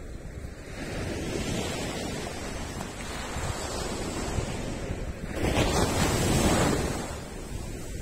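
Small ocean waves breaking on a sandy beach and washing up the sand, with the loudest breaker a little past the middle that then fades away.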